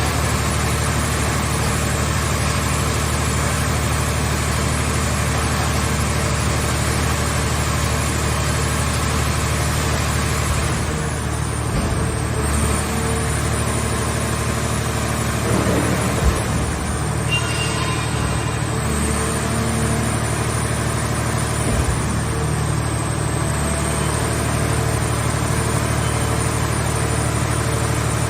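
A car-body baler's engine running steadily, with a few short knocks.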